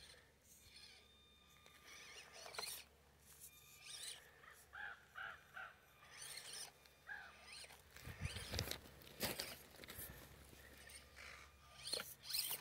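Small RC rock crawler moving over loose rocks and gravel, with faint clicking and crunching of stones under its tyres throughout. A bird gives several short calls around the middle, and a brief low rumble comes about eight seconds in.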